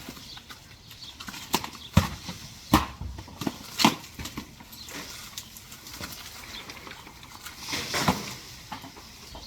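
Several sharp knocks at uneven intervals, the strongest about two, three and four seconds in, with a short rustling swell near the end.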